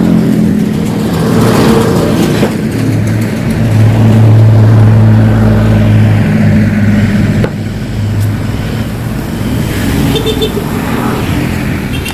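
Yamaha RX-King's two-stroke single-cylinder engine running through its hollowed-out (bobok) exhaust, a steady low drone. It swells for a few seconds in the middle and drops back at about seven and a half seconds in.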